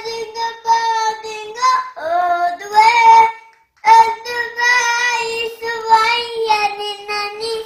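A young child singing loudly on long held notes, with a short break a little before halfway through.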